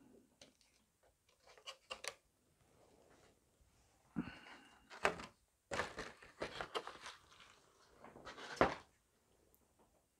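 Scattered clicks, rattles and knocks from handling a clear plastic compartment box of small model-ship parts, as single-hole rigging blocks are picked out and the box is moved aside. The loudest knock comes near the end.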